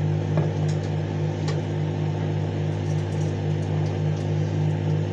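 Microwave oven running while heating a packaged currywurst: a steady low hum with a fainter hiss above it.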